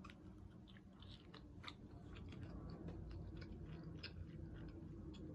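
A person chewing food close to the microphone, with many small, wet mouth clicks scattered irregularly through the chewing.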